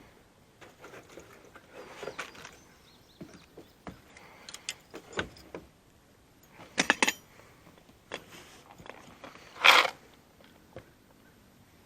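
Scattered clicks, rattles and short scraping bursts of handling noise, with the loudest rattling clusters about seven seconds in and near the end.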